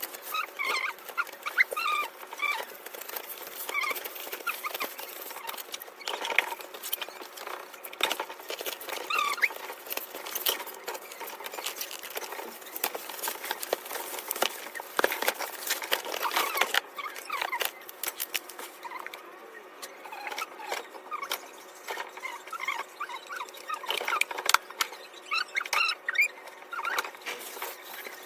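Objects being handled: irregular clicks, light knocks and rustling, with short high squeaks scattered through.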